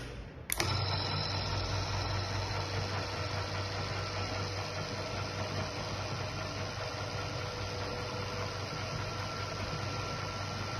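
Electric gate-opener motor 1 starting with a click about half a second in, then running steadily with a hum, driven to open in deadman (hold-to-run) mode while the control board's button is held.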